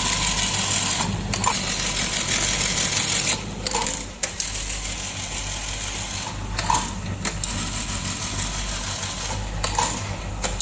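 Juki LBH-781 industrial buttonhole sewing machine running with a steady electric hum and whir, with a few short clicks.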